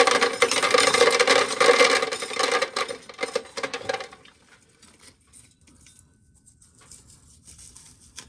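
Dried corn kernels crackling and rattling off a small ear of corn being shelled by hand, kernels pattering down. The dense rattle stops about four seconds in, leaving only a few faint clicks.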